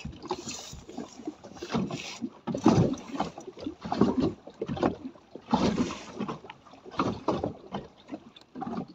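Wind and rain on a small open speedboat riding a swell at anchor: irregular loud surges of noise, about one every second or so, as water slaps the hull and gusts hit the microphone.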